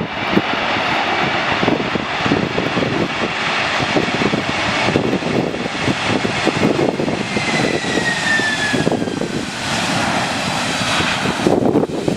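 Boeing 767 twin turbofan engines running as the airliner passes, a steady rushing roar with a whine that falls in pitch about two-thirds of the way through. Gusts of wind buffet the microphone.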